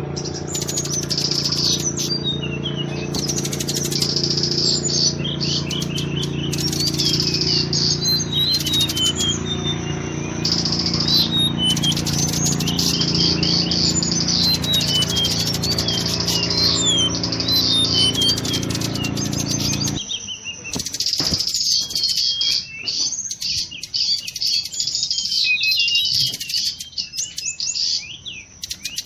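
Mangrove blue flycatcher song: repeated runs of rapid, high, thin whistled notes that slide up and down, played as a lure call. A steady low hum runs underneath and stops abruptly about two-thirds of the way through.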